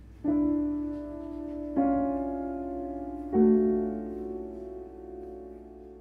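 Piano playing three slow chords about a second and a half apart, each left to ring and fade, the last dying away gradually.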